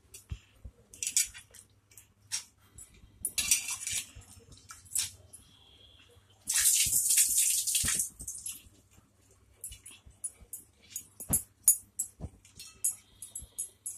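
Steel kitchen vessels clinking and tapping while soaked urad dal is handled in a steel mixer-grinder jar, with one pouring rush about six and a half seconds in that lasts about a second and a half.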